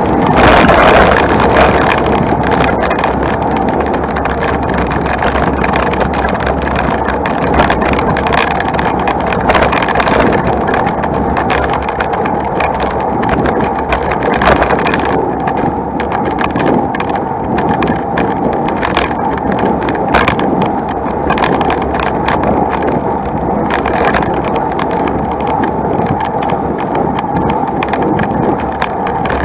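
Road bike being ridden uphill, heard from a camera on the bike: a steady rumbling noise with frequent small rattles and clicks.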